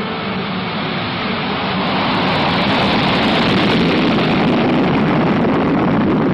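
Boeing B-52 Stratofortress's eight turbojet engines at take-off power, a loud steady jet noise that swells about two seconds in and then holds.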